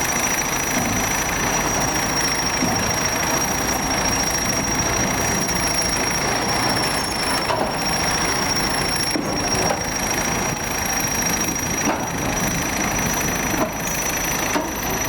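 EO-5111B excavator's diesel engine running steadily, with a steady high-pitched whine over it and a few faint knocks in the second half.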